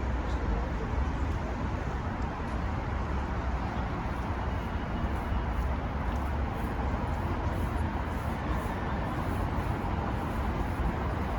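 Steady road traffic noise: a continuous rumble of passing vehicles with no single event standing out.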